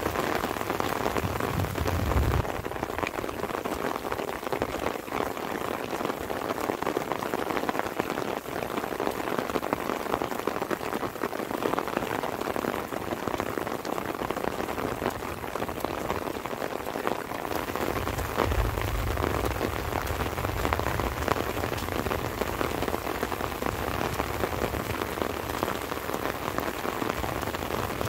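Light rain falling steadily, a dense patter of many separate drops. A low rumble sits underneath for the first two seconds and again over the last ten or so.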